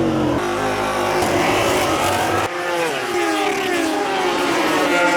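Racing motorcycle engines at high revs, pitch climbing and dropping repeatedly through gear changes, with an abrupt switch to a different engine sound about halfway through.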